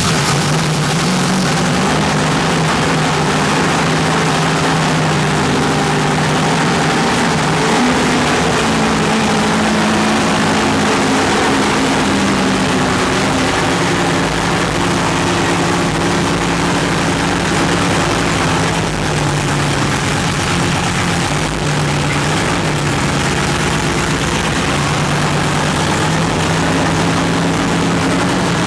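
Freshly rebuilt racing engine running steadily on its first start-up after the rebuild, its note drifting slightly up and down.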